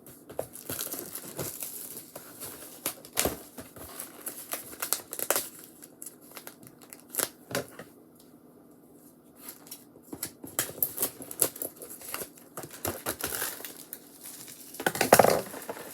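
Packaging being crinkled and torn open as a slime kit is unpacked: irregular crackling and rustling, with a quieter lull a little past the middle.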